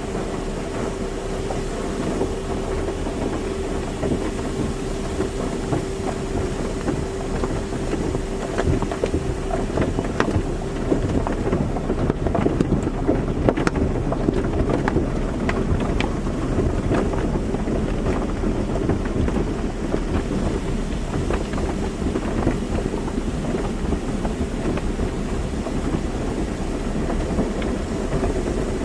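Car wash running: water spraying and spattering on a car over a steady machine hum, with the spatter heaviest around the middle.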